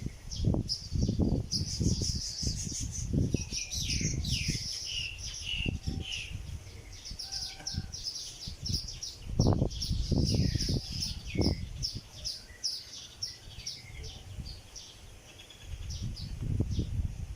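A flock of small nest-building birds chirping rapidly and continuously in many short high notes. Irregular low rumbles come and go under the calls, strongest about 9 to 12 seconds in.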